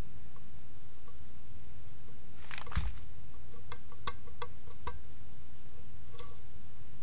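Blown turbocharger, its compressor wheel hitting the housing: irregular metallic ticks over a low steady rumble, with a brief louder scrape about two and a half seconds in.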